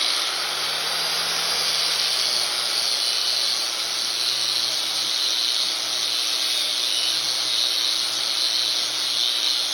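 A motor-driven wire brush scrubbing rust off a steel axe head: a steady hissing scour over the hum of the tool's motor.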